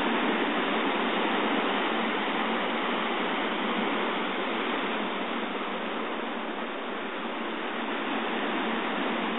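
Ocean surf breaking and washing over a rocky shore at high tide: a steady rushing noise that eases slightly about six or seven seconds in, then builds again.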